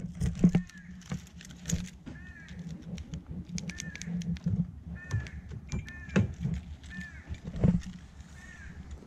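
Footsteps on dry grass, with the knocks and rattles of keys and handling. A bird calls over and over, a short call about once a second.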